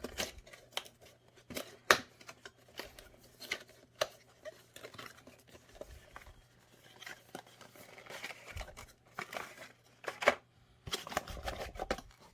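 Retail packaging being opened and handled: scattered sharp clicks and snaps, the loudest about two seconds in, with stretches of rustling and crinkling of plastic and cardboard.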